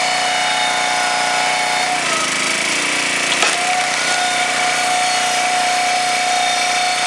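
Huskee 22-ton log splitter's gas engine running steadily; about two seconds in it labours and drops in pitch under load, then a sharp crack of wood giving way comes about three and a half seconds in and the engine picks back up to its steady speed.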